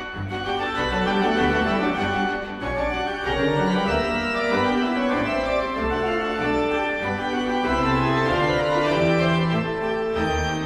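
Organ music playing held chords.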